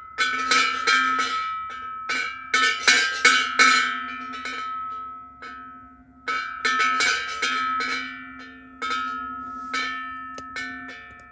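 Bronze Japanese fuutaku temple wind bell struck repeatedly with a stick, in quick runs of several strokes with short pauses between. Each stroke leaves a clear, high ringing tone over a lower hum that slowly decays; after the last strokes near the end the ring fades away.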